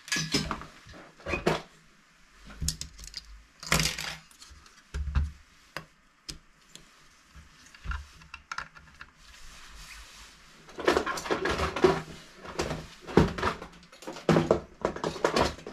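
Handling noise on a workbench: a cable being moved and a bench power supply being set down on the work mat, heard as irregular knocks, rustles and clatters. The clatters are sparse at first and come thick and fast in the last third.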